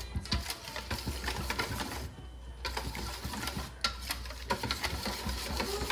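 Rapid, irregular clicking and tapping from hand kitchen work with utensils, pausing briefly about two seconds in.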